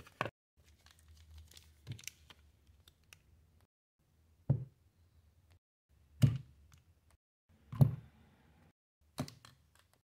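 Handling noise from unboxing a folding knife: light rustling of a cardboard box and papers, broken by about six separate knocks as objects are picked up and set down on a mat. The three loudest knocks come in the middle and later part.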